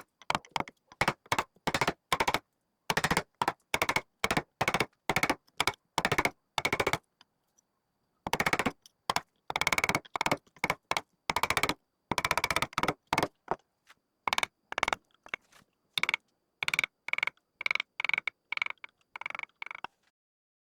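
A woodworking tool cutting in many short bursts, each well under half a second, with a steady high whine in each burst and dead silence between them.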